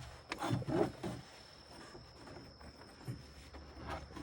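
A cricket chirring in one steady high tone throughout. A few short knocks and clatters from handling the bandsaw mill's blade and parts come about half a second in and again near the end.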